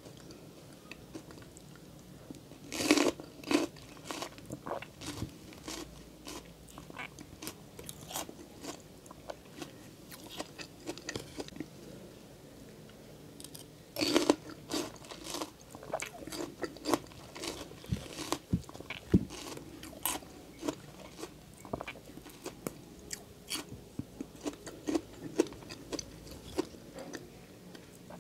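Bites into crisp bilimbi (kamias) fruit, with two loud crunches about three seconds and fourteen seconds in, then many seconds of chewing with small clicks.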